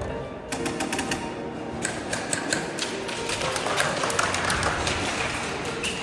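Airsoft guns firing: rapid, irregular clicking shots and BB impacts from about half a second in, with music underneath.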